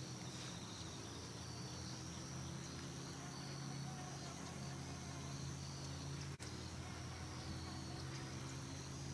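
Insects chirring steadily in a high, even drone, with a low steady hum underneath.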